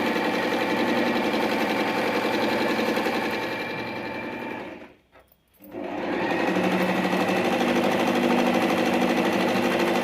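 Singer sewing machine running steadily as it stitches. It slows and stops about five seconds in, then starts again within a second and runs on steadily.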